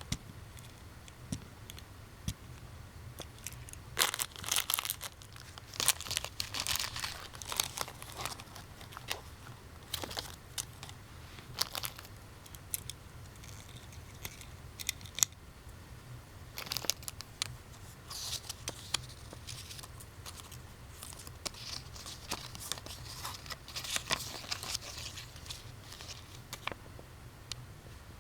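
Plastic being crinkled and handled in irregular bursts, with scattered sharp small clicks.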